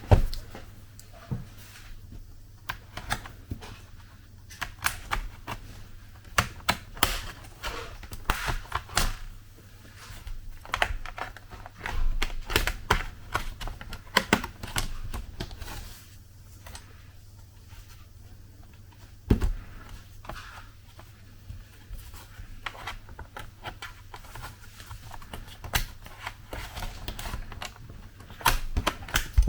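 A pry tool working around the edge of a Lenovo Yoga laptop's bottom case, the case's retaining clips releasing in irregular sharp clicks and snaps as it is pulled off.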